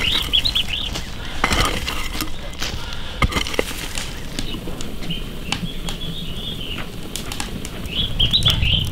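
A few pickaxe strikes into dry earth, with a small bird chirping in quick runs of short high notes near the start and again near the end.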